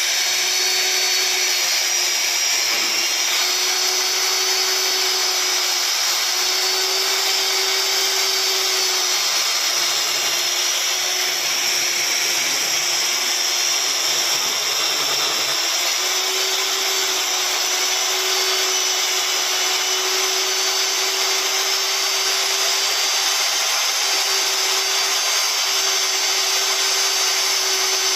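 Electric diamond core drill running steadily under load, its water-fed core bit cutting a hole through a wall, with a constant motor whine.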